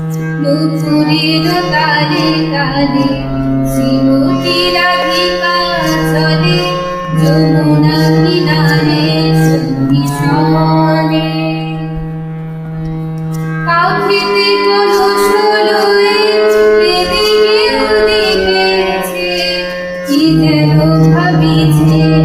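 Bengali padavali kirtan devotional music: a melody over a sustained low drone, with regular percussion strikes. The drone drops out for several seconds past the middle, then comes back near the end.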